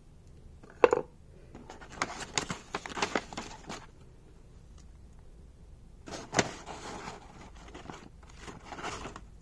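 A sharp tap about a second in, then paper and card rustling and crinkling as stationery is handled in a cardboard box, with another tap partway through; near the end the pages of a lined notepad are riffled.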